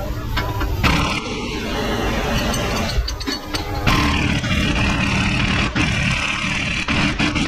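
Impact wrench hammering on a lower control arm bolt, a dense mechanical rattle that runs on for several seconds, working the bolt loose.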